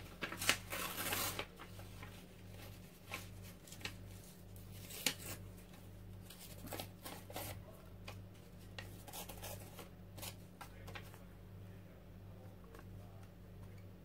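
Old book-page paper being handled and torn into collage scraps: a dense rustling tear about half a second in, then scattered crinkles and small clicks that thin out after about 11 seconds. A faint steady low hum runs underneath.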